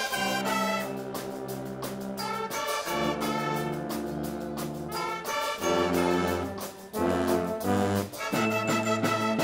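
Guggenmusik brass band playing: trumpets and other brass in loud held chords that change every second or two.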